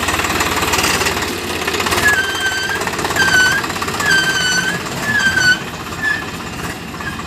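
Tractor diesel engine running with a fast, even chugging, and a run of short high squeals, four or five of them, each dipping slightly in pitch, between about two and five and a half seconds in.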